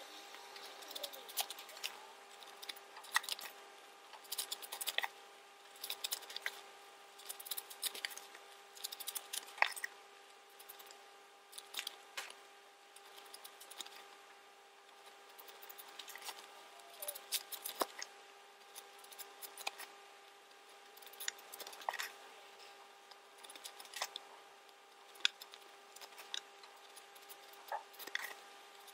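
Fabric rustling and swishing as sewn scrunchie tubes are turned right side out by hand and dropped onto a wooden table, in short bursts every second or two with small sharp clicks. A faint steady hum runs underneath.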